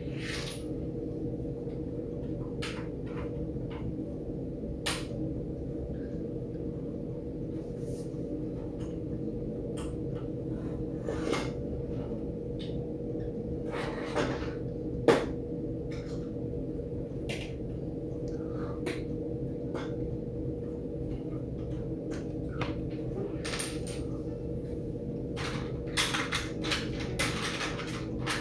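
Small taps and clicks of watercolour painting, a brush worked on paper and against the palette, scattered every second or two over a steady low room hum. Near the end the taps come thicker as a tissue dabs the wet paint.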